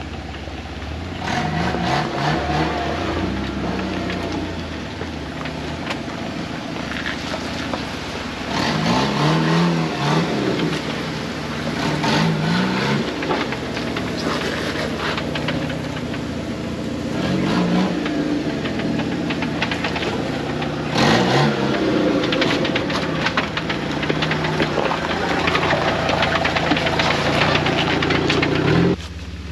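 Jeep Wrangler engine revving up and down several times as it works a trail, with a scatter of clicks and knocks over it. The engine sound drops off suddenly near the end.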